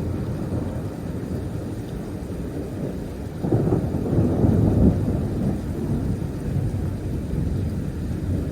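Rolling thunder from a thunderstorm, a continuous low rumble that swells louder about halfway through and then eases off.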